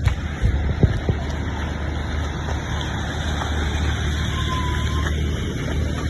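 Steady noise of rain and road traffic with a low engine rumble underneath. A few sharp knocks come about a second in, and a short high beep sounds near the middle.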